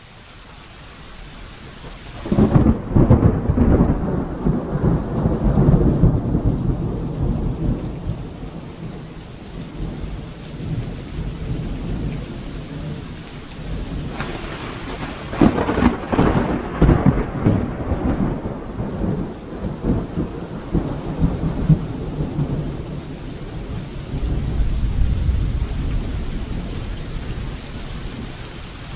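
Thunderstorm: steady rain with thunder. The sound fades up at the start, then two loud thunder cracks come about two and a half seconds and fifteen seconds in, each rolling on as rumbling for several seconds, with another low rumble building near the end.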